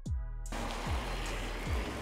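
Background music with a beat of deep bass drum hits that slide down in pitch, about one every second. A steady hiss comes in about half a second in.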